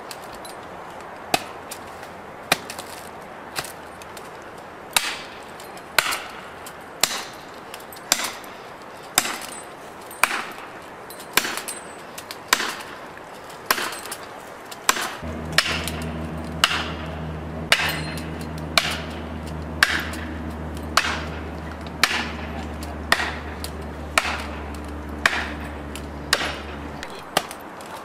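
Heavy blows, about one a second, of a hammer driving a felling wedge into the saw cut of a large pine to tip it over. About halfway through, a steady low engine hum joins in and cuts off suddenly near the end.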